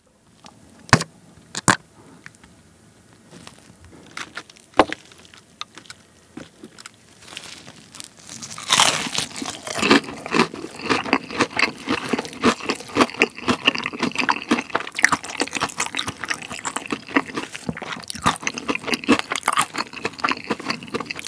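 Crunchy bite into a crisp-battered fried chicken cutlet about nine seconds in, followed by steady crunchy chewing up close. A few sharp clicks come in the first five seconds.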